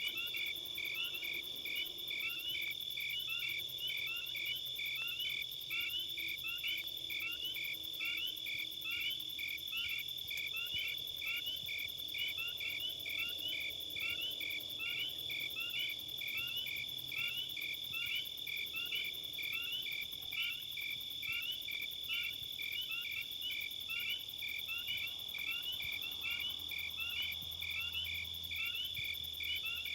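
Insects chirping: a steady high-pitched trill with a regular chirp repeating about twice a second.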